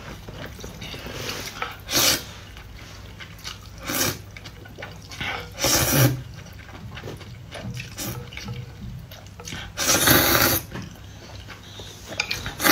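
Noodles slurped up out of a bowl of soup in several short wet slurps, with a longer slurp about ten seconds in.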